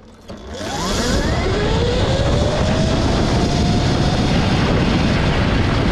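Electric go-kart's DC motor whining as the kart launches hard from a standstill. The whine rises steeply in pitch over the first couple of seconds, then levels off, under a loud rushing noise of wind and tyres that builds with speed.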